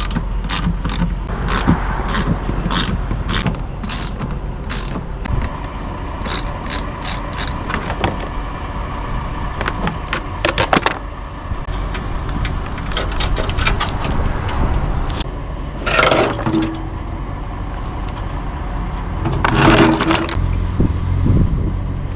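Plastic engine-bay trim pieces and their clips being worked loose and pulled off by hand. A run of sharp clicks and scrapes comes thickest in the first few seconds, with more clusters of clicks and two louder rattling bursts near the end.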